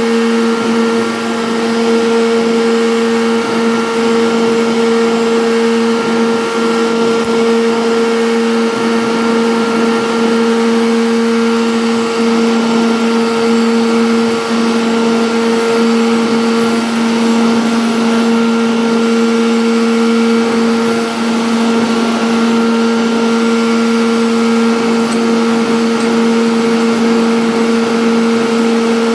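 CNC router spindle running steadily, a constant hum over an even rush of noise, as when carving MDF.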